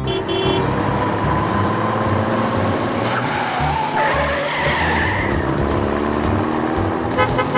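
Car sound effect: engine running with tyres squealing and skidding, over background music.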